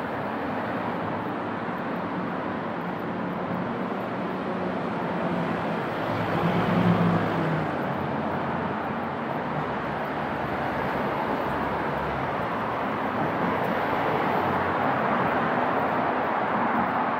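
Street traffic ambience: a steady hum of road noise, with a car driving past close by about seven seconds in.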